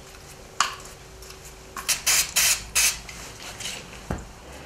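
Aerosol polish sprayed onto a cloth duster in four short, loud hisses about two seconds in, after a single click; a dull thump near the end.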